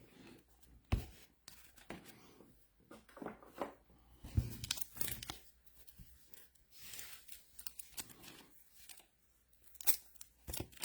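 Trading card pack wrappers being torn open and crinkled, with the light clicks of cards being handled, in short scattered bursts.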